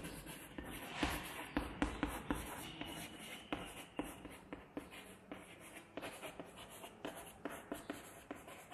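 Chalk writing on a chalkboard: a faint, continuous run of short taps and scratches as letters are stroked out.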